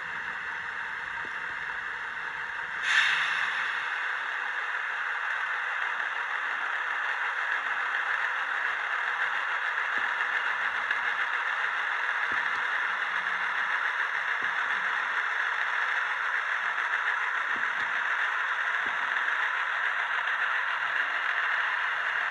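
Sound decoder in an N gauge Class 17 diesel locomotive model playing diesel engine sound through its tiny speaker. The sound is thin and has almost no bass. A sharp burst comes about three seconds in, then the engine sound runs on steadily.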